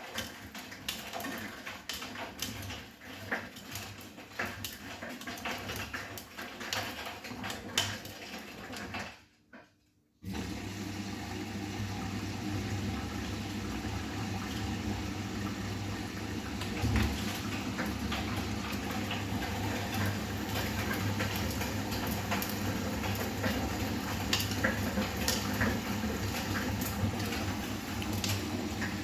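Bosch front-loading washing machine at the start of a wash: scattered clicks and rustles, then, after a short gap about ten seconds in, a steady rush of water filling the machine over a low motor hum.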